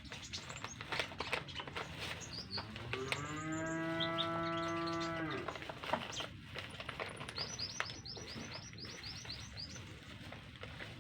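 A cow moos once, a single drawn-out low call of about two seconds a few seconds in, the loudest sound. Near the end a konin songbird gives a quick run of high chirps, over scattered small ticks and clicks.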